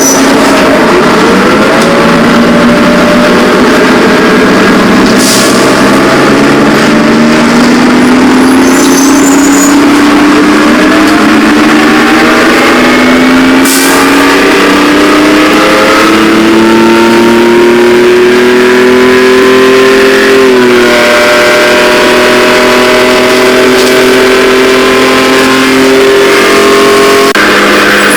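A car engine accelerating, its pitch climbing steadily and dropping back at gear changes, about twenty seconds in and again near the end.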